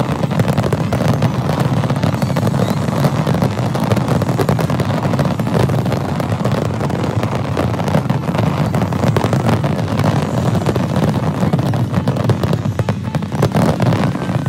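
Large fireworks display going off in a continuous, dense barrage of bangs and crackles over a low rumble, with no break.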